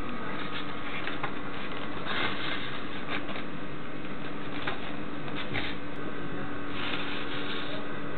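Synthetic rope and cardboard being handled, with short bursts of rustling and scraping a couple of seconds in, past the middle and near the end, over a steady background hum.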